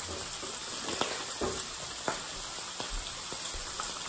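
Bacon strips and a sausage patty frying in a skillet in their rendered fat: a steady sizzle with scattered small pops.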